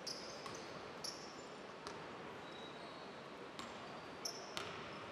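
Basketball bouncing on a hardwood court, a handful of sharp irregular knocks, with short high squeaks of sneakers on the floor over steady arena hall noise.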